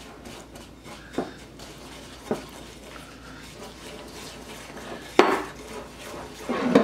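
A whisk stirring a thick sugary sauce in a bowl, with a soft steady scraping and the odd click of the wires against the bowl. Two louder knocks come near the end.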